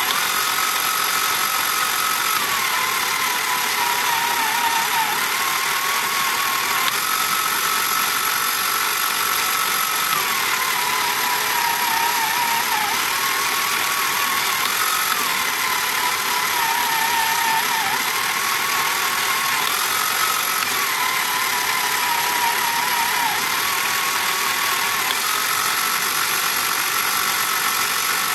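Small replacement electric motor and plastic gear train of a 1979 Tomy Hit and Missiles toy running steadily, turning the target film belt. Its whine shifts every few seconds between a higher and a lower pitch, wavering when low.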